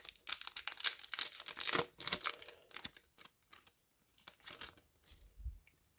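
Foil booster pack wrapper being torn open and crinkled by hand, loudest and densest in the first two seconds, then lighter rustling of the wrapper and cards.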